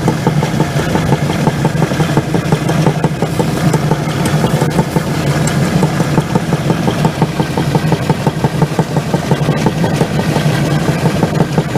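Grain conveying machine running steadily as it carries barley up through a tube, with a fast, even pulse.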